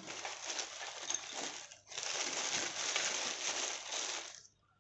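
Packaging crinkling and rustling as it is handled, in two stretches with a brief break about two seconds in, stopping shortly before the end.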